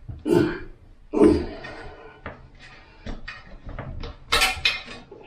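Clunks, scrapes and small clicks of metal tank bolts being worked out through their rubber grommets in a porcelain toilet tank. There are four louder knocks, two early and a close pair about four and a half seconds in.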